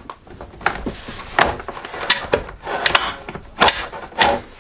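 Stand of a Cisco Webex Desk Pro being fitted to the back of the unit: several sharp clicks and knocks as the leg's metal brackets are pressed and snapped into the slots, with plastic handling noise in between.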